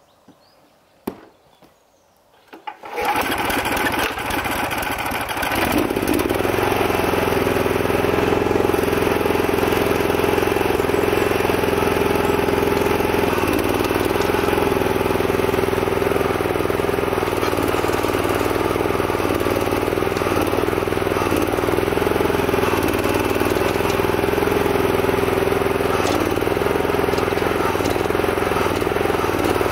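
A small single-cylinder petrol engine, an 11-horsepower Honda or Honda clone powering a homemade mini excavator, starts about three seconds in and revs up. It then runs steadily, belt-driving the hydraulic gear pump, and its note dips briefly now and then as the digging arm is worked and takes load.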